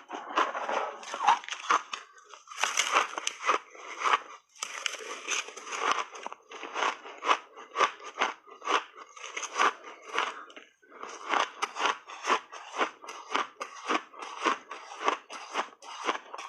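Crunchy frozen shaved ice being bitten and chewed: a quick run of crisp crunches, roughly two or three a second, broken by a few longer grinding stretches.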